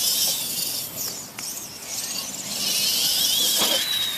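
Electric motors of radio-controlled Clod Buster monster trucks whining as they race over grass, the whine wavering up and down in pitch and loudest in the second half, with two short knocks.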